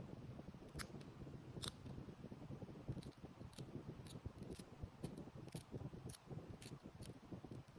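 A run of light, sharp clicks, roughly two a second, over a low steady rumble.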